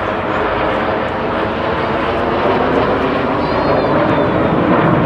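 Formation of BAE Hawk T1 jet trainers flying past, a loud steady jet roar that grows slightly louder.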